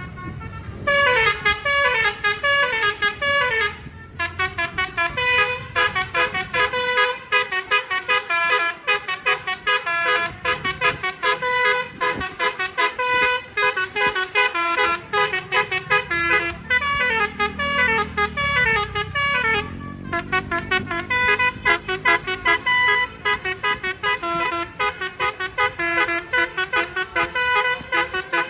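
Bus telolet basuri multi-tone horn playing fast runs of short notes that step downward in pitch, repeated over and over with brief pauses. A low rumble rises and falls about two-thirds of the way through.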